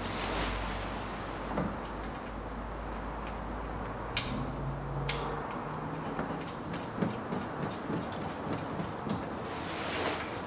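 Work noises under a car: two sharp clicks about four and five seconds in, then a run of small irregular ticks and knocks, over a steady low hum.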